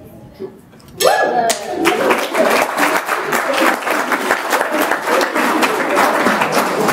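Guests break into applause about a second in, with a brief cheer at the start, and the clapping carries on steadily.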